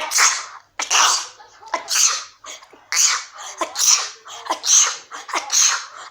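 A person sneezing over and over in quick succession, about one sneeze a second, seven sneezes in a row.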